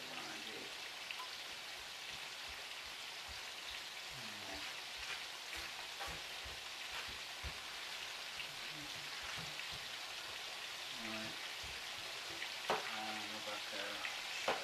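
Meatballs frying in a pan: a steady sizzle, with a few faint clicks and knocks.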